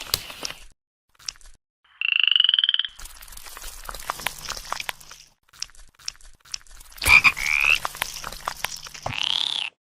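A pulsing, croak-like call lasting about a second, about two seconds in. Later come a rising squeaky tone and an arched squeak, amid many crisp clicks and crunches.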